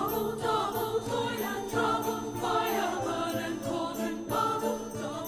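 Background music with jingling bells keeping a regular pulse under a wavering sung melody.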